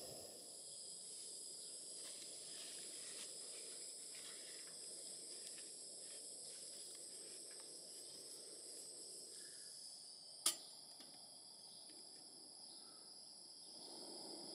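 Quiet outdoor ambience with faint, steady high-pitched tones and a soft low hiss, broken by one sharp click about ten seconds in.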